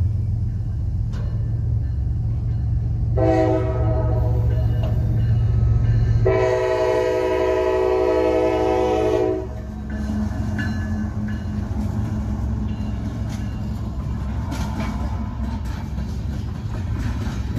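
CSX diesel freight locomotive running with a steady low engine drone, sounding its air horn twice: a first blast about three seconds in, then a louder one of about three seconds. Wheels on the rails follow with scattered clicks.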